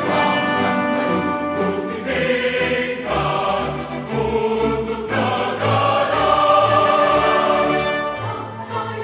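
Choral music with orchestral backing: a choir singing long held notes that change every second or so.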